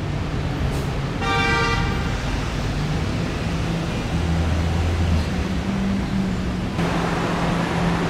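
Steady roadway traffic noise from cars and buses, with a short vehicle horn toot about a second in.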